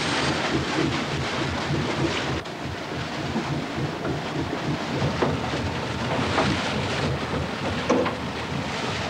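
Diesel engines of the sea rescue cruiser Hermann Helms running as she gets under way, a steady heavy rumble with a low, even throb.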